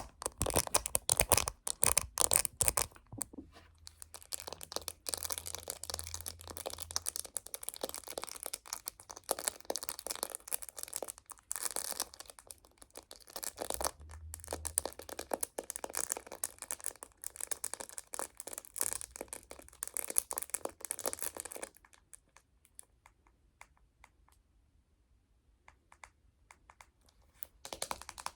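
Close-up fingernail tapping and scratching on a phone case: rapid light clicks mixed with a scratchy rustle, thinning to a few scattered taps about two thirds of the way in before quick tapping picks up again near the end.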